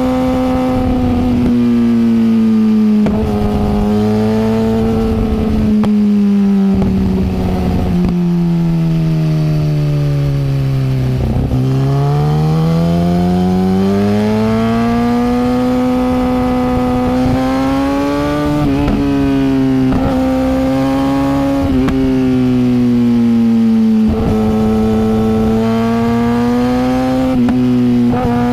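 Kawasaki Ninja ZX-10R's inline-four engine running loud and continuous, its pitch drifting slowly: it falls steadily to a low point about eleven seconds in, then climbs back and wavers gently.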